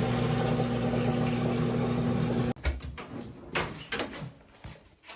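Front-loading washer's drive motor running with a steady hum while the drum stays locked and the belt slips on the pulley; it cuts off suddenly about two and a half seconds in, followed by a few light clicks and knocks. The drum is held by a rear bearing that turns out to be completely seized.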